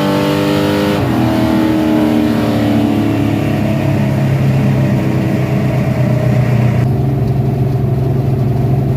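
High-compression, carbureted car engine running: its pitch drops about a second in as the revs come down, then it settles into a steady low drone.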